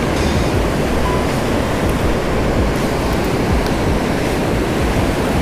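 Steady rush of river water pouring through a dam's spillway gates and churning below them.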